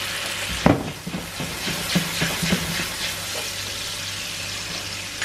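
White wine sizzling and hissing as it deglazes a very hot frying pan, the hiss slowly dying down. A sharp knock comes just under a second in, followed by several lighter clicks.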